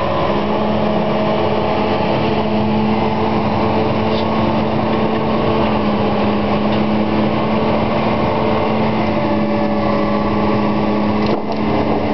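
Heavy demolition machinery's engine running steadily under load with an even, unchanging pitch, broken briefly near the end.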